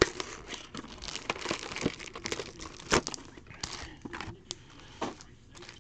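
Foil-wrapped football card packs crinkling as they are lifted out of their cardboard box and handled, with a few sharp clicks and knocks of the box.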